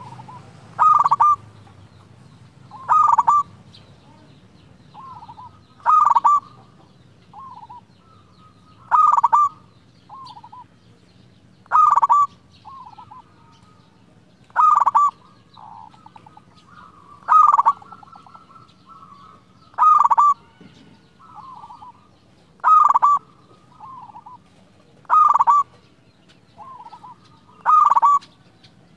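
Zebra dove (perkutut) cooing: a loud call repeated about every two and a half to three seconds, with fainter coos in between.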